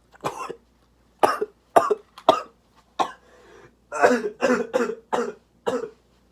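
A person coughing in fits, about ten short, loud coughs, with a quick run of five near the end, from breathing in the fumes of freshly sprayed Axe body spray.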